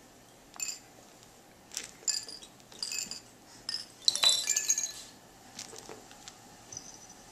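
A series of light, ringing clinks of small hard objects such as glass knocking together, about six in all, the loudest and longest cluster about four seconds in.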